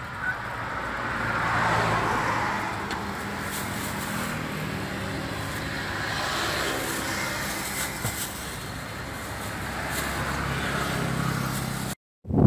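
Road traffic: a motor vehicle engine running with a steady low hum, with swells of traffic noise as vehicles pass. The sound cuts out briefly near the end.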